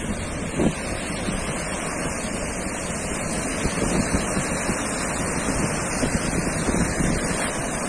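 Sea surf washing steadily onto a beach, with wind buffeting the microphone in low gusts.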